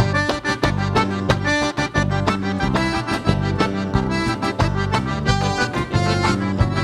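Accordion playing the lead over a band with guitar and a steady, even percussion beat: an instrumental break in an upbeat country dance song.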